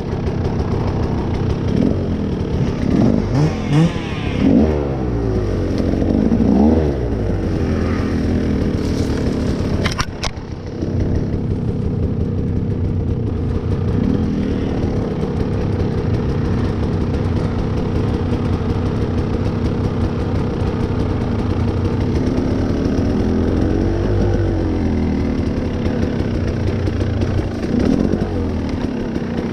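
Dirt bike engine running and being revved while ridden slowly through the woods, its revs rising and falling several times, with a sharp knock about ten seconds in.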